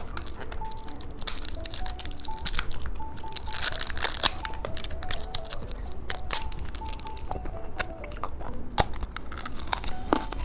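Plastic candy packaging being handled and torn open: irregular crinkling and crackling with sharp small snaps, throughout.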